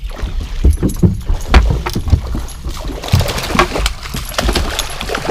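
Paws thumping and scrabbling on a bass boat's deck as a dog rushes toward the edge, with clicky rattling throughout. A hooked bass splashes at the surface about three seconds in.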